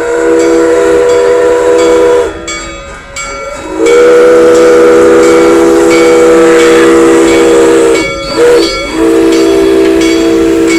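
Train whistle blowing a three-note chord in a long, long, short, long pattern, the grade-crossing signal. It is very loud and close.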